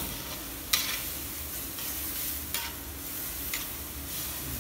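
A flat metal spatula stirring diced ridge gourd and potatoes in a brass wok over a steady sizzle, knocking sharply against the pan about three times.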